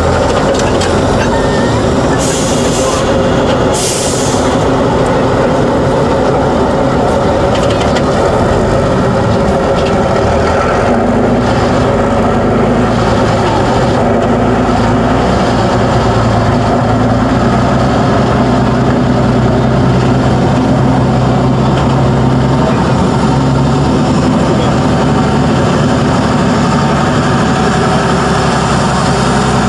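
Tatra 813 8x8 trial truck's diesel engine working hard as the truck crawls over rough ground, its note strengthening for about ten seconds in the middle. Two short hisses of air about two and four seconds in.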